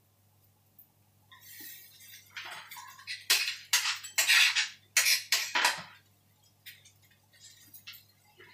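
Kitchen food-prep noise: a run of short scrapes and clatters as shredded baked chicken is pushed off a chopping board into a metal wok. It starts after about a second, is loudest in the middle, and gives way to a few faint clicks near the end.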